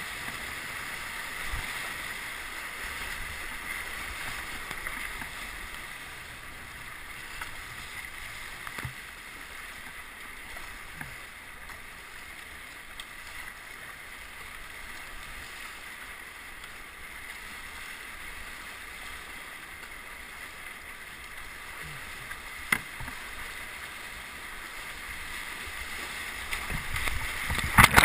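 Whitewater rapid rushing and splashing around a kayak, a steady hiss of churning water with an occasional knock. Near the end the water noise swells sharply as the kayak capsizes and goes under.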